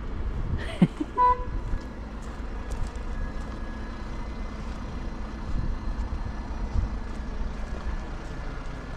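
Heavy vehicle engine running steadily, with a brief single horn toot about a second in.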